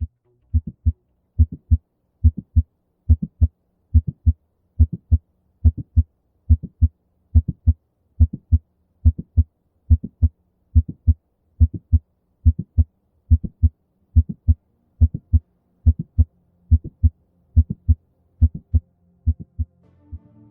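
Heart-sound recording of mitral stenosis, the 'quail rhythm': a loud first heart sound, the second sound and a short mitral opening-snap click, repeating at about 70 beats a minute.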